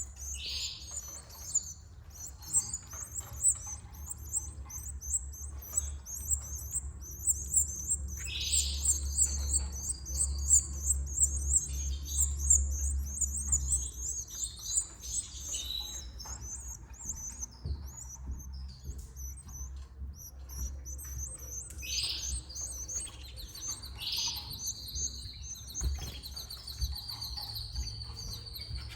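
Canaries chirping rapidly and continuously, with louder swooping calls now and then, over a steady low hum.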